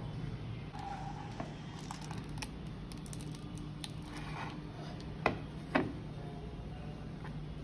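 A serving spoon clicking and knocking against a pan and a plate as rice is served, with two sharp knocks about half a second apart a little after halfway, over a steady low hum.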